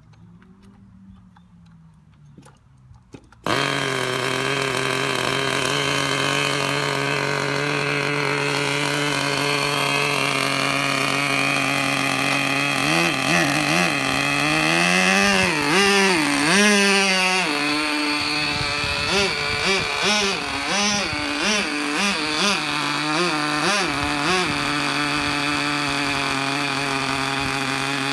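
Kyosho GS11X nitro engine of a 1/4-scale RC go-kart catching and starting about three and a half seconds in, after a few faint sounds, then running at a steady fast idle. Around the middle the pitch swings up and down several times as the throttle is blipped, then it settles back to a steady idle with small wavers.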